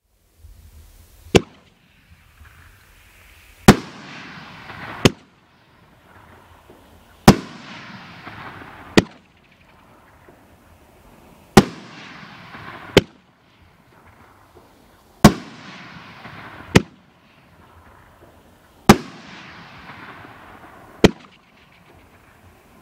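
'Migraine' consumer fireworks cake firing single shots one after another. Each shot is a launch bang, then about two seconds later a louder bang as the shell breaks, followed by a fading hiss from the falling trails. About six launches and five breaks are heard.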